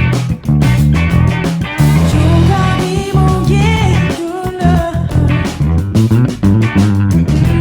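A rock song with electric guitar, played along with on a Sire V7 five-string bass guitar, whose notes sit low and steady under a sliding melody line in the middle.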